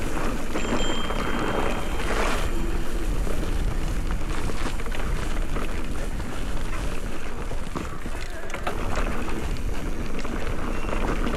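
Wind buffeting the microphone and mountain-bike tyres running over loose, dry dirt, with many small rattles and clicks from the bike. This is the steady noise of an electric mountain bike riding down a trail.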